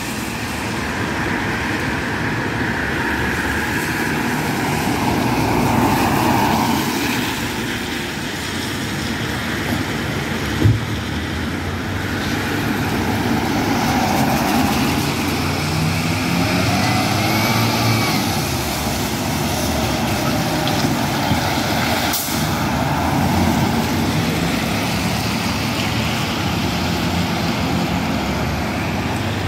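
Diesel engine of a MAN fire engine running as it pulls out of its bay and drives off, mixed with cars and a van passing on a wet road. A short knock about ten seconds in.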